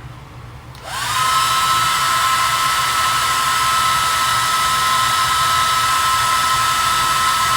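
Handheld hair dryer switched on about a second in, its motor whine rising quickly to a steady high pitch over a loud rush of blown air, and running on without a break.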